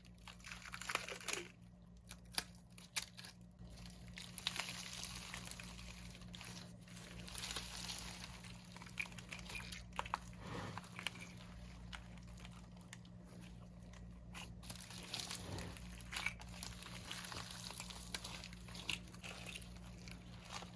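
Faint crinkling and wet squelching from a large homemade slime-filled squishy being cut open and its slime handled, with scattered sharp clicks.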